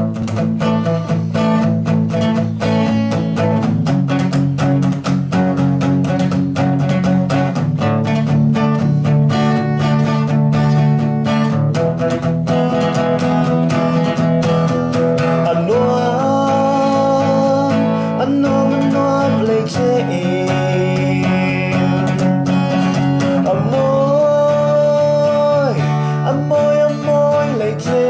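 Music: a strummed acoustic guitar accompaniment, with a held, gliding melody line coming in about halfway through.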